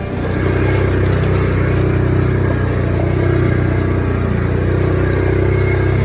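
A large engine running steadily at constant speed, with a deep even hum.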